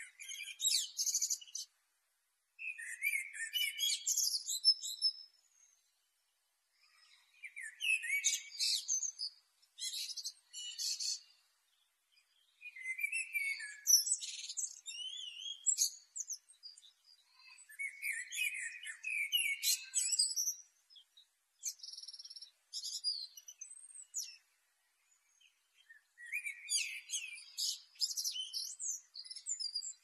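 Male common blackbird singing: repeated phrases a few seconds long with short pauses between, each mixing lower warbled notes with high, squeaky twittering.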